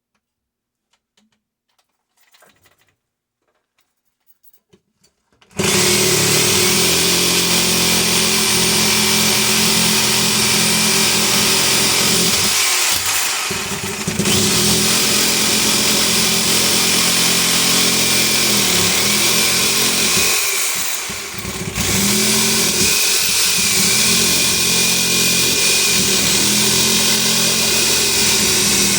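A few faint handling clicks, then about five seconds in a power tool starts and runs loud and steady, easing off briefly twice, as it cuts into the steel shell of a sealed refrigeration compressor.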